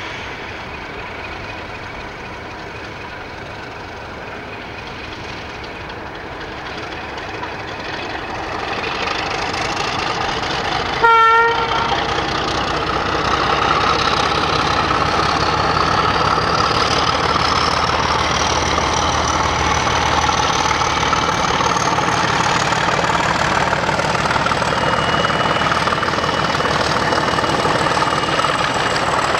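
British Rail diesel locomotive gives one short horn blast about a third of the way in. Its engine then runs louder as it pulls a passenger train away from the platform, with a whine that climbs slowly in pitch.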